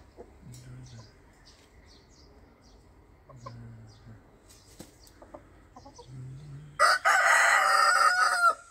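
Chickens clucking softly a few times, then a rooster crows once, loudly, near the end.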